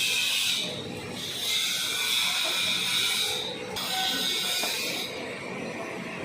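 Electric arc welding: the arc crackles and hisses steadily in stretches of a second or two with short breaks, then dies down to a fainter hiss about five seconds in.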